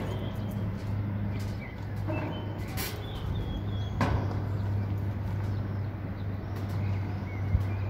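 Outdoor ambience: a steady low hum of distant traffic with birds chirping, and two sharp clicks about three and four seconds in.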